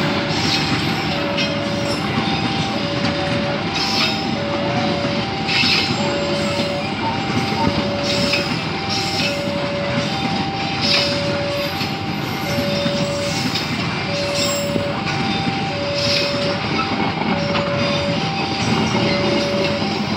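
Passenger train coaches rolling steadily past through a level crossing, a continuous rumble of wheels on rail with repeated clacks over the rail joints. Over it, the crossing's warning alarm sounds a repeating two-tone chime.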